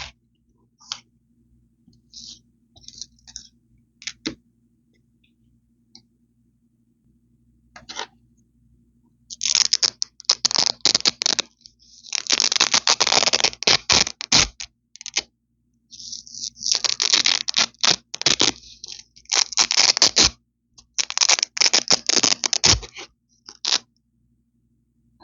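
Velcro hook-and-loop strips ripped apart close to the microphone, a crunchy, crispy tearing. A few faint light crackles come first; then, about nine seconds in, come five or so long rips of one to two seconds each, with short pauses between them.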